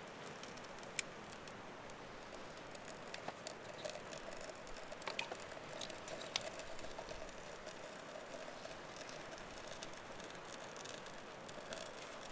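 A small fire of kindling and birch bark crackling, with scattered faint pops and a few sharper snaps, busiest a few seconds in.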